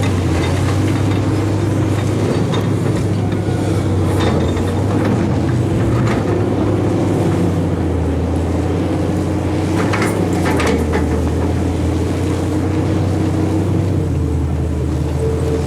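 Heavy diesel machinery of a Fiat Hitachi FH450 excavator loading a Perlini dump truck, running steadily under load, with a few short knocks from the work, two of them close together about ten seconds in.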